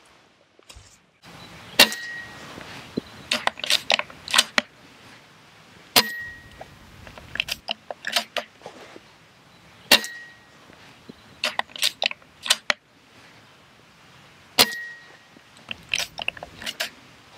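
Silenced Brocock Compatto Bantam pre-charged air rifle fired four times, about four seconds apart, each shot a sharp crack with a brief ringing note. Between shots comes a quick run of small metallic clicks as the side bolt is cycled to load the next pellet from the rotary magazine.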